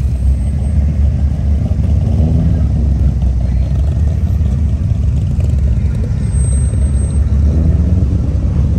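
Engines of several classic cars driving slowly past one after another, a steady low rumble.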